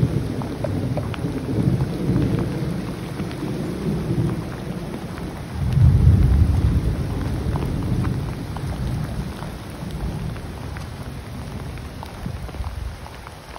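Rain falling, with scattered raindrop ticks over a low rumble that swells and fades, loudest about six seconds in.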